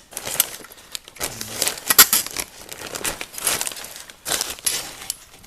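Irregular metallic clinking, rattling and scraping as a sealed, cable-operated air damper for a fireplace's outside-air intake is handled and worked.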